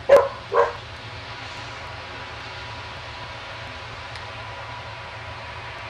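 A dog barks twice in quick succession, then a steady distant engine drone from a combine harvester working a corn field carries on under it.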